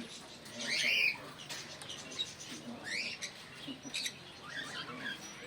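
Small pet parrots chirping in short, quick calls, several rising in pitch. The loudest burst of chirps comes about a second in, with scattered chirps and faint clicks after.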